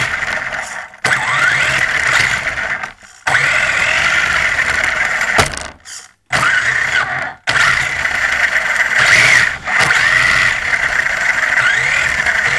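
Turnigy 1/16 brushless 4WD mini rally car's electric motor and geared drivetrain whining in bursts under throttle. The pitch rises as it speeds up, and the whine cuts off abruptly several times as the throttle is released.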